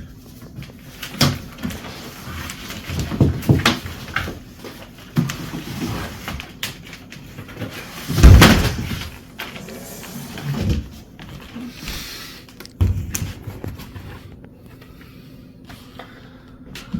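Irregular knocks, rustles and thumps of bike parts and packaging being handled, with a heavy thump about eight seconds in.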